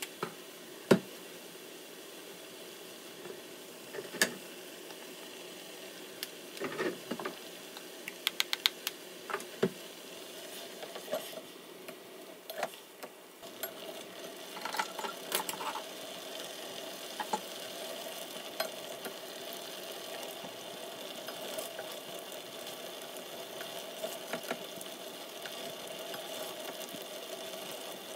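Spatula stirring a thick meat-and-chili-paste sauce in a stainless steel saucepan on the stove: a few sharp knocks against the pan in the first half, then steady stirring and scraping from about halfway in, over a steady hum.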